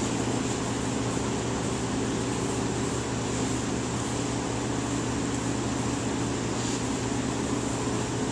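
AIT 7300IJO Sport rotary drum dye-sublimation heat press running, a steady mechanical hum and whir as its drum turns and feeds transfer paper and fabric.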